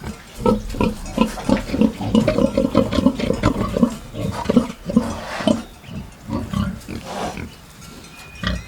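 Pig grunting in quick short grunts, many in a row, thinning out near the end.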